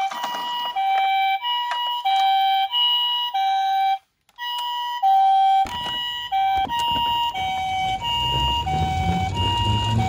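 Toy ambulance's electronic two-tone siren, a Japanese-style hi-lo "pee-poh" alternating between two steady pitches about every half second, with a brief dropout a little under halfway through. About two-thirds of the way in, a low rumble joins it as the toy rolls down a wooden slope.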